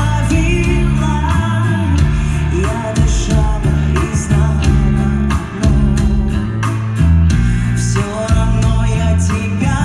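Live band playing loudly, with sustained bass notes under pitched instruments and regular drum hits.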